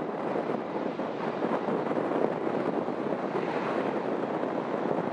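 Steady rushing roar of a jet airliner's engines, mixed with wind on the microphone.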